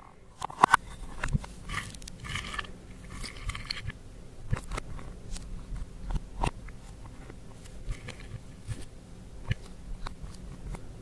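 Slime being squeezed and kneaded by hand, making irregular sticky clicks and crackles, with a cluster of louder clicks in the first second.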